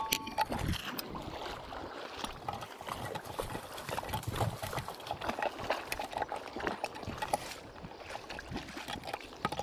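Shallow stream water running and trickling, with many irregular small clicks and knocks of stones being handled in the water.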